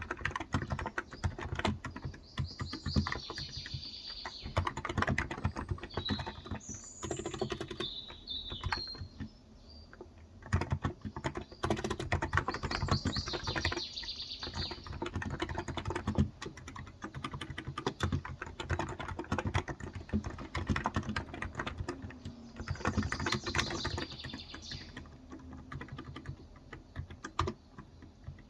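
Continuous typing on a Cox Endeavor electrostatic capacitive (Topre-style) tenkeyless keyboard with 35 g switches: rapid, dense keystrokes. Birds chirp briefly now and then behind the typing.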